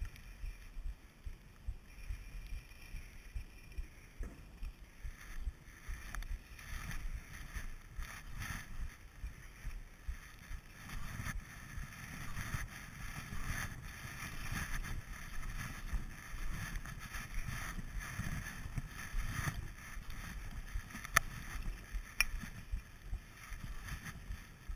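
Skis sliding over groomed snow: a steady hiss of ski bases and edges with a repeated swish as the skier turns, louder from about halfway through. Two sharp clicks about a second apart near the end.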